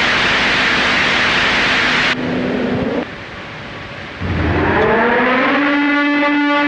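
A burst of loud static hiss over a low steady hum lasting about two seconds, the hum holding on alone for another second. After a quieter gap, a low rumble and a tone that glides upward from about four seconds in, settling into a steady, buzzy held note.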